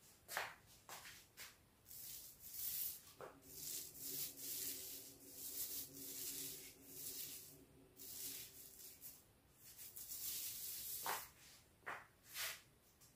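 Repeated soft rubbing swishes of paint being spread onto a wooden door frame, with a few light knocks near the start and near the end.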